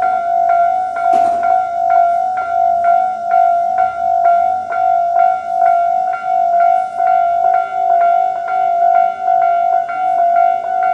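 Japanese railway level crossing's electronic warning bells ringing a steady, repeated ding about two to three times a second, the standard crossing alarm sound from both sides of the crossing. A short burst of noise comes about a second in.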